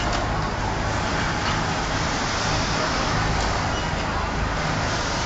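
Industrial sewing machines running in a garment sewing room: a steady mechanical din with a low hum underneath.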